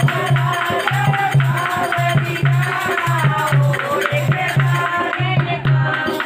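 Devotional bhajan music: women singing to a dholak-style hand drum, with a steady low beat about twice a second and rattling, clicking hand percussion on top.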